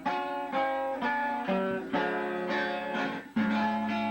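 Viola caipira played with plucked single notes and chords at a lively, steady pace, each note ringing. A brief dip a little over three seconds in leads into a lower held chord.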